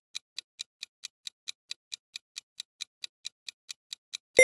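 Countdown-timer sound effect: a clock-like ticking, about four and a half even ticks a second, counting down the thinking time, with a bright bell-like chime striking right at the end as the timer runs out.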